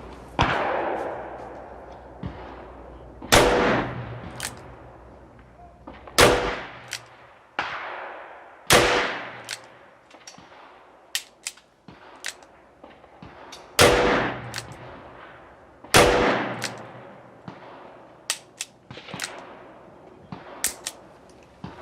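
Smith & Wesson Airlite .357 revolver firing .38 Special powder-coated lead rounds: six shots a few seconds apart, each with an echoing tail. Fainter sharp cracks fall between the shots.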